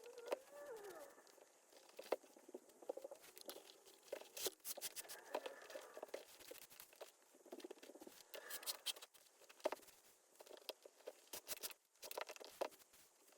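Hands working an old leather baseball glove: irregular small taps and clicks, rustling, and short squeaks of leather rubbing on leather.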